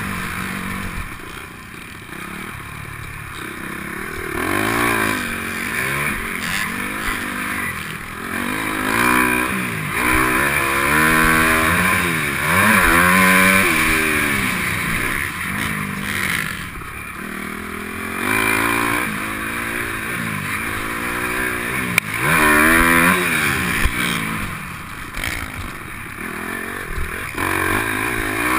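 Motocross bike engine heard from the rider's helmet camera, revving up and dropping back over and over as the rider accelerates and shifts around the dirt track. A couple of sharp knocks come in the second half.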